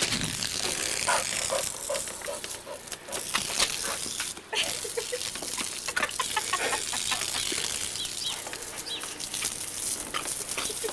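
Garden hose spraying and splashing while a dog snaps and bites at the water stream, with many short sharp sounds and brief pitched noises mixed into the steady spray.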